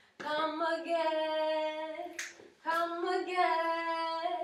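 A woman singing a cappella in long held notes, two phrases with a quick breath between, carrying the tune for a dance routine counted in just before.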